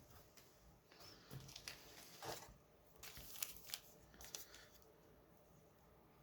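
Faint handling of trading cards: a scatter of soft slides and clicks as the cards are flipped through, stopping about four and a half seconds in.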